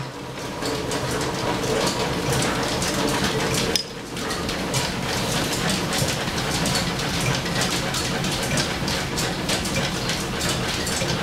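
Antique flat-belt-driven lathe running off the line shaft, its gears and belts clattering steadily while it takes a thread-cutting pass. The noise drops briefly about four seconds in.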